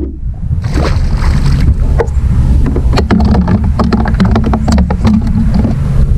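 Wind rumbling steadily on the microphone, with a quick run of sharp clicks and knocks from about a second in to near the end.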